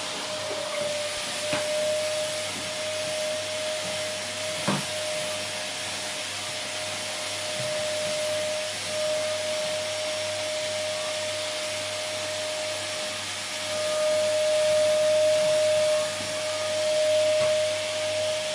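Vacuum cleaner running steadily: a rushing hiss of air with a steady motor whine. A single click about five seconds in, and the sound swells louder for a few seconds near the end.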